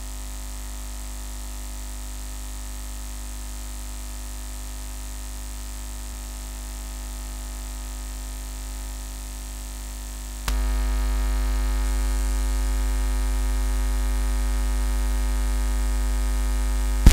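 Steady electrical mains hum from the turntable's playback chain, a low buzz with many overtones, stepping up clearly louder about ten and a half seconds in.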